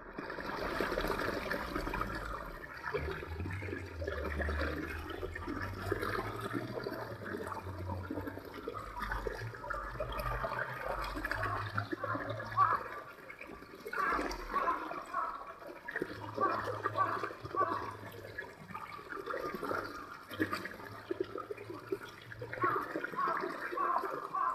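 Small shallow stream running and babbling over rocks, with a low rumble underneath during the first half.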